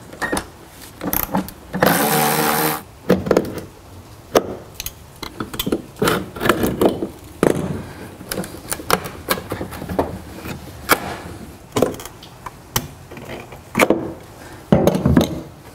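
A cordless ratchet whirs for about a second, about two seconds in, then a string of clicks, taps and knocks follows as bolts and plastic bed-rail pieces are handled by hand.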